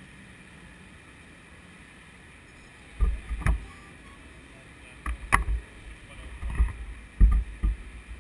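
Wind buffeting the microphone of a camera on a moving bicycle's handlebar: a steady low rumble at first, then loud gusts from about three seconds in, with a few sharp clicks.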